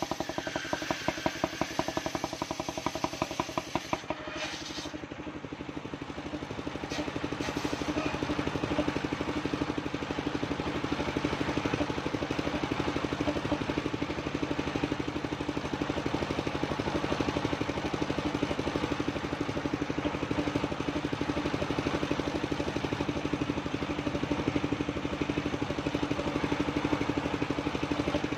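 Engine of a mobile circular sawmill running with a rapid, even pulse. The sound shifts about four seconds in and then runs steadily.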